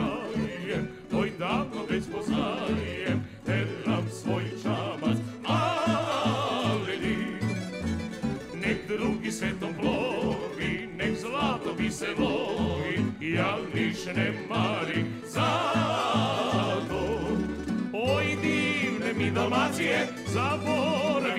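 Tamburica orchestra playing live: plucked tamburicas over a string bass keeping a steady beat, with men's voices singing.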